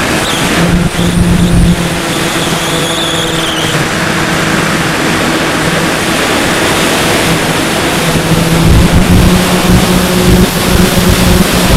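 Electric motor and pusher propeller of a Bixler 2 RC plane humming steadily, with wind rushing over the onboard camera's microphone; the motor hum grows louder near the end.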